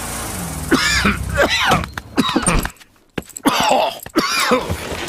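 A cartoon bear's voice groaning and coughing, sick with a cough. The short sick noises come in two runs, broken by a brief pause about three seconds in.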